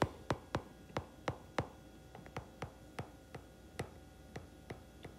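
Stylus tapping and clicking on a tablet's glass screen while handwriting: a string of light, irregular clicks, about three a second.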